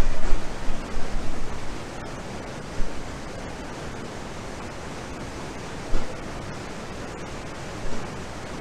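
A waterfall in full flood from Hurricane Ida's rain, normally only a trickle, giving a steady, dense rush of falling water. It is louder and gustier for about the first second, and a few brief bumps come through later.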